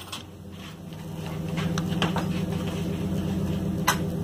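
A steady low motor hum that grows louder over the first couple of seconds, with a few faint clicks and a single sharp crack near the end.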